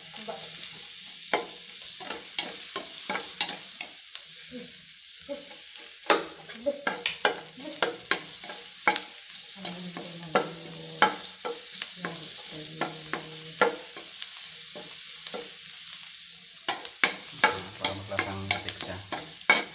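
Garlic sizzling in hot melted margarine in a wok, with a steady hiss. A spatula stirs it, scraping and clicking sharply against the pan many times.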